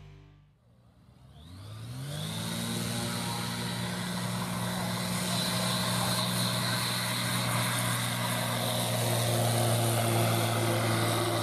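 Zenith STOL light aircraft's engine and propeller opening up to full power for a short take-off. The pitch rises over about a second, starting about a second and a half in, then holds steady at full throttle through the take-off roll and climb-out, growing a little louder near the end.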